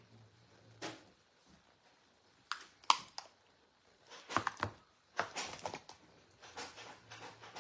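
Small sharp clicks and knocks of makeup being handled: a plastic powder compact and a makeup brush tapped, clicked and set down on a table. A few isolated clicks come first, then a busier run of them in the second half.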